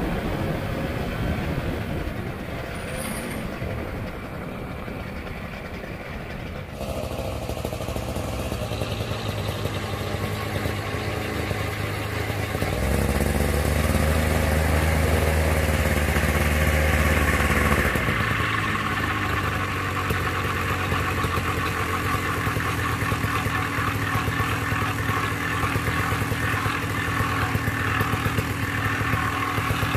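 Engine of an E-12NK single-seat ultralight aircraft running with its propeller turning. It runs harder and louder for about five seconds near the middle, then settles back to a steady run.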